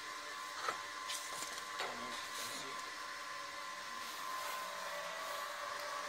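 A few light clicks and knocks in the first two seconds as a print head is handled on its metal mounting bracket, over a steady machinery hum with a high, even whine.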